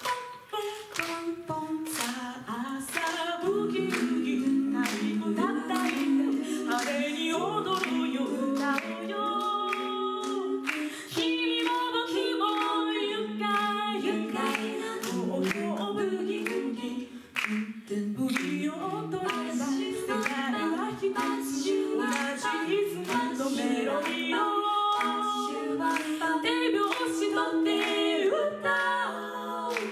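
Four women singing a cappella into microphones in close harmony, with a vocal percussion beat clicking steadily under the voices.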